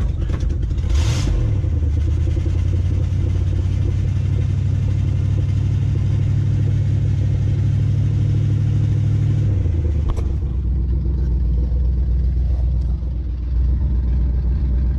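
Old Ford pickup's engine running steadily, heard from inside the cab with the hood up. A brief rushing noise comes about a second in, and the engine note drops and settles lower about two-thirds of the way through.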